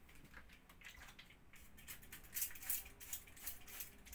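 Hand-pump trigger spray bottle squirting water onto window glass in a quick series of short hissing sprays, most of them in the second half. The glass is being wetted so the privacy film sticks without bubbles.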